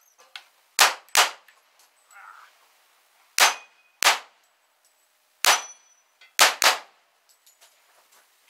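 Semi-automatic pistol fired seven times: three quick pairs and one single shot, each a sharp crack.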